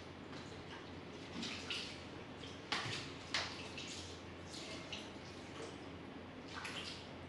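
Wet splashing and splatting of black paint on a tiled floor as it is poured and struck into the puddle, in short irregular bursts with two sharper splats near the middle.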